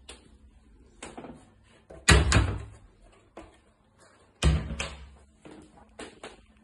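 A door shutting twice with heavy thuds about two and a half seconds apart, with lighter clicks and knocks between them.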